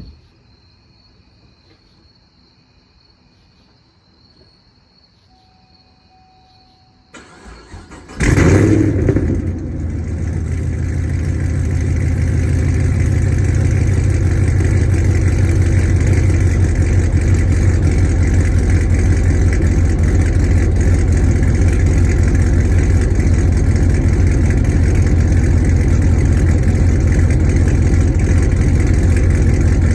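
Hennessey Camaro V8 being started: after several quiet seconds the starter cranks about seven seconds in, the engine catches with a loud flare a second later and settles into a steady, deep idle. The exhaust has a leak on the passenger side just after the long-tube headers.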